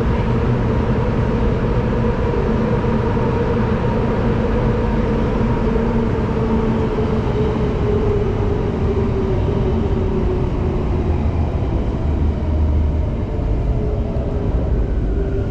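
Singapore Downtown Line MRT train running through a tunnel, heard from inside the carriage: a steady rumble of wheels on track with a motor whine. The whine slides lower in pitch and fades partway through.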